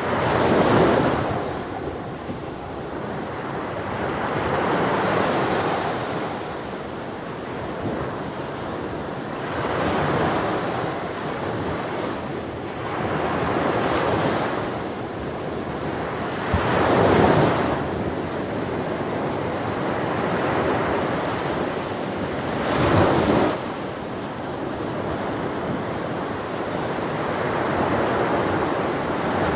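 Ocean surf breaking on a beach: a steady wash of noise that swells and fades with each wave every four to six seconds, a few breakers louder than the rest.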